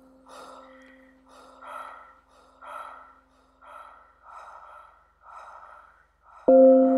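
A person breathing heavily and quickly, about one breath a second, over a faint low tone that fades out. Near the end a loud, steady ringing tone of several pitches starts abruptly.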